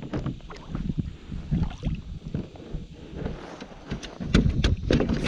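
Irregular knocks and clatter on a plastic fishing kayak as a freshly landed flounder is handled on board, over a low wind rumble on the microphone. The knocks come thicker and louder near the end.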